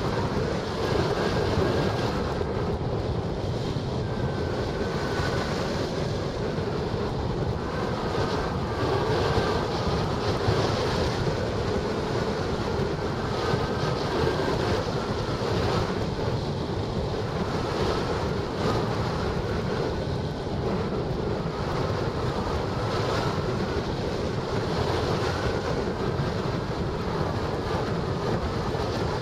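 Steady rush of wind over a hang glider in flight, buffeting the microphone of a camera mounted on the wing.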